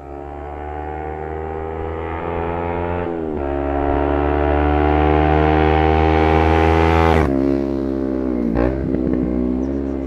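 Kawasaki Ninja 250's parallel-twin engine through a Leo Vince GP Corsa slip-on exhaust, revving hard as the bike passes: the pitch climbs, dips at a gear change about three seconds in, climbs again as it grows louder, then drops sharply as the bike goes by about seven seconds in.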